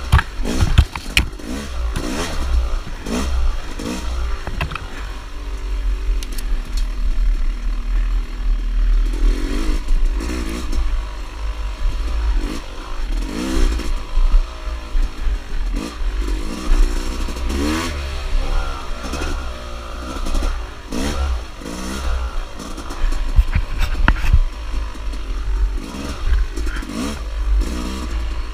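Dirt bike engine revving up and falling back over and over as it is ridden hard along a tight trail. Sharp clattering knocks from the bike over rough ground come through over a heavy low rumble.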